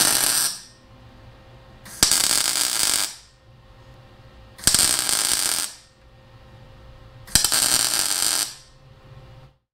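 Wire-feed welder laying four short tack welds, each about a second of loud crackling arc, tacking a steering U-joint onto its steel shaft at four points. A steady low hum carries on between the tacks.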